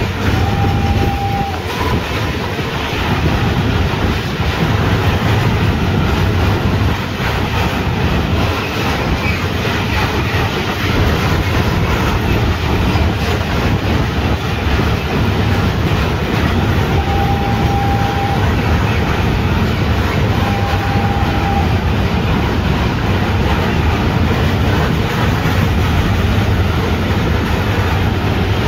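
Trains running at speed on parallel tracks, a steady loud rumble with the clatter of wheels over the rails. A short steady high tone sounds three times: once near the start and twice about two-thirds through.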